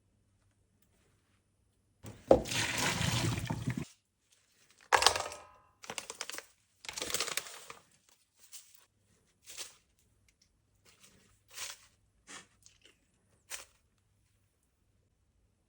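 Kitchen handling sounds: a two-second rush like pouring or running water, a sharp ringing clank, then two shorter rushes and a scattering of light knocks and clicks.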